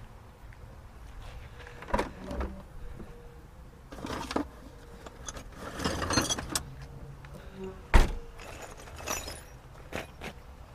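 Metal hand tools and sockets clinking and clattering as they are handled and rummaged through, with scattered knocks; the loudest is a sharp knock about eight seconds in.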